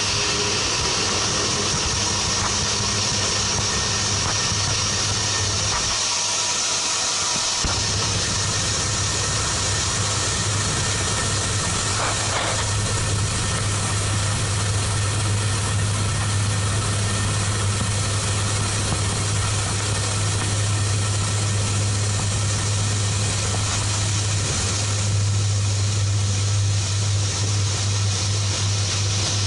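Four-engine turboprop of a C-130 Hercules running, heard inside the cockpit: a steady propeller drone with a low hum and engine hiss. The low hum drops away for a second or two about six seconds in, then returns.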